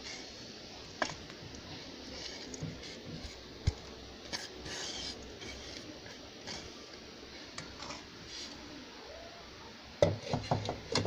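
Kitchenware handled while a bowl of grated carrot, chopped onion and green chilli is tipped and scraped by hand onto flour in a basin: scattered light clicks and knocks, then a quick run of louder clatters near the end, the loudest sounds here.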